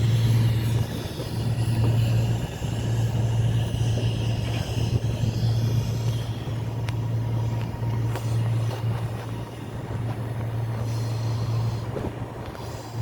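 Train noise at a railway station: a steady low hum throughout, with a fainter higher whine in the first few seconds that fades as a train pulls away.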